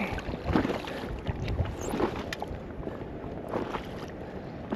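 Wind buffeting the microphone and water lapping against the hull of a small pedal fishing kayak, in uneven swells.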